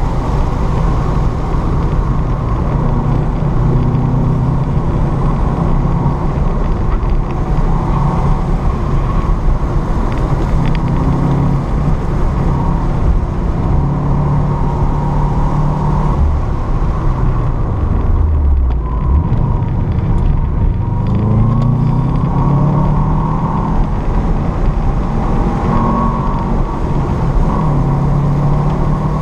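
Car engine heard from inside the cabin, driven hard at around 4,000 to 5,000 rpm with road and wind noise underneath. About 17 seconds in the revs drop away for a couple of seconds, then climb again as the throttle goes back on.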